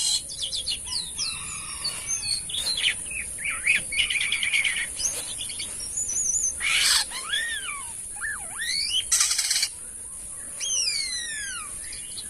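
Jalak kapas starling singing a busy, varied song of whistled slides and arching notes, with harsh rasping calls about 7 s and 9.5 s in.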